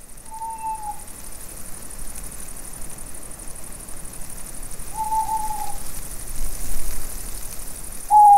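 Owl hooting: three single short hoots a few seconds apart, each dropping slightly in pitch, the last one loudest near the end. A steady hiss runs underneath.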